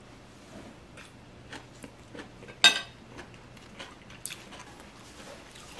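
Soft chewing and handling of food, with faint small clicks and one sharp clink of a metal fork against a plate about halfway through.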